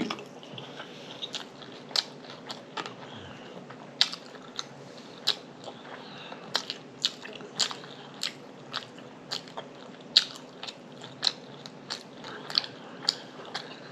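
A person chewing a bacon, egg and cheese croissant sandwich: a steady run of sharp, irregular crackly clicks of mouth and food, one to three a second.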